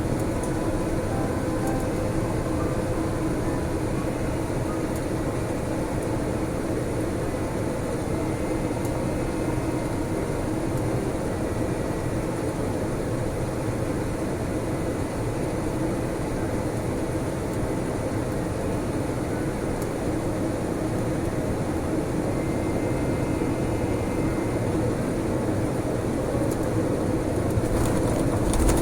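Steady cabin noise of a Boeing 787-10 airliner: an even rush of engines and airflow with a low steady hum, growing a little louder near the end.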